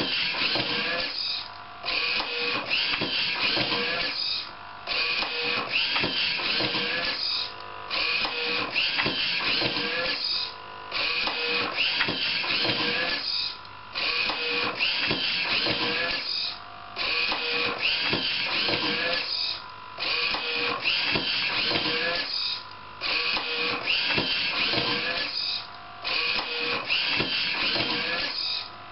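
DIY automatic book scanner's page-turning mechanism cycling: motors whirring and parts rattling, broken by a short lull about every three seconds, one cycle per page turn.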